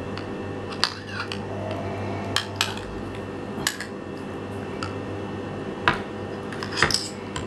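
Metal fork clinking against the inside of a small glass jar of anchovies in oil, about half a dozen sharp, irregular clinks as it prods at fillets stuck together.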